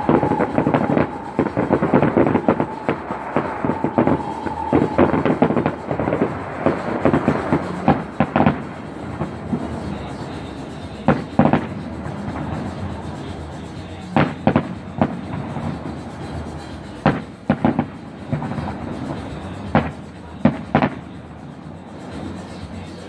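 Fireworks display: a dense barrage of crackling bursts and bangs for the first eight seconds or so, then single booms, mostly in pairs, every few seconds as the display thins out.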